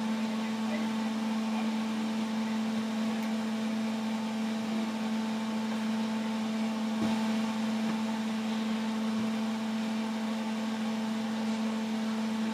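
Kitchen appliance motor running with a steady, even hum.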